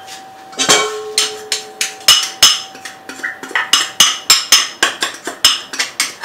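A small cut-glass bowl knocked again and again against a stainless steel mixing bowl to empty sugar and spice powder out of it: a fast, uneven run of sharp ringing clinks, three or four a second.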